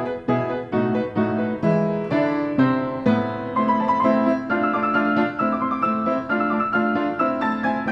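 Piano music: a steady rhythm of struck chords with a melody line above them.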